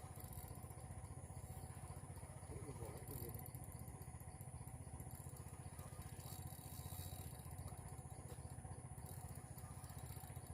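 A small engine running steadily with an even low rumble, heard faintly.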